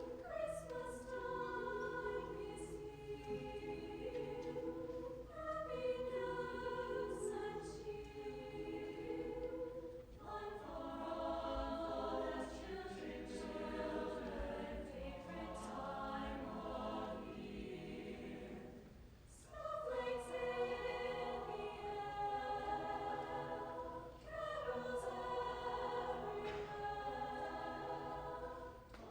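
Choir singing in phrases with short pauses between them.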